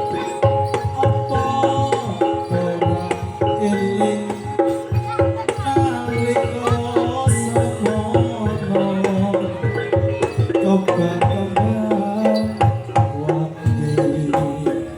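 Live Javanese gamelan music accompanying a trance dance: hand drums beating a fast, dense rhythm over short pitched notes from tuned percussion.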